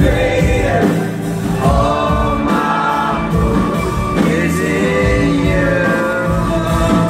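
Live contemporary worship band playing and singing, a lead voice over guitar and keyboard with a steady bass underneath.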